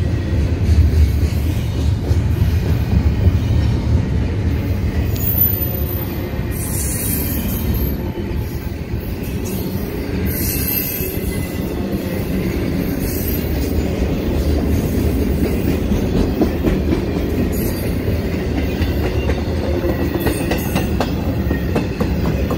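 Double-stack intermodal freight train's well cars rolling past: a steady low rumble of steel wheels on rail, with a few brief high-pitched wheel squeals about six, ten and thirteen seconds in.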